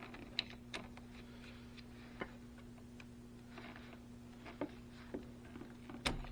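Hand tools cutting and handling a battery cable, heard as scattered light clicks and snips with a sharper click near the end, over a steady low hum.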